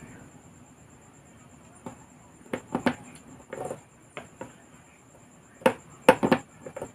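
Scattered small clicks and rustles of hands handling a lure being made, plastic crystalite strips and black thread wound on a cotton-bud stick, loudest a little over halfway through. A faint steady high-pitched trill runs behind.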